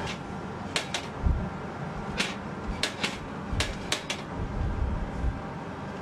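Typewriter key-strike sound effect: sharp clacks, singly or in quick pairs, spaced irregularly over a steady low rumble.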